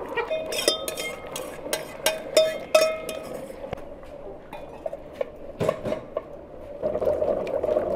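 A metal spoon clinking and scraping against an enamel pot: a quick run of sharp, ringing clinks in the first three seconds, then a few scattered knocks. A steady rushing noise sets in near the end.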